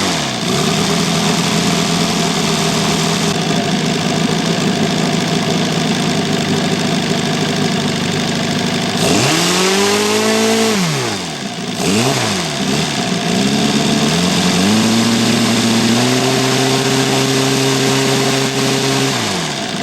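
OS Pegasus four-cylinder four-stroke model glow engine running on a test stand, idling steadily with its tappets audible over the engine. About nine seconds in the throttle is blipped up and back down, then opened in steps to a steady higher speed and closed again at the very end.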